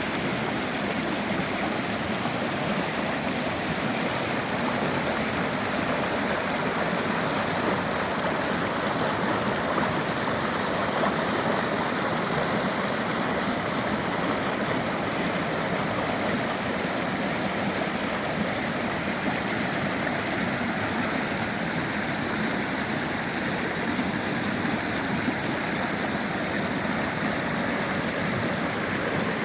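Mountain river rushing steadily over rocks, a continuous even roar of running water.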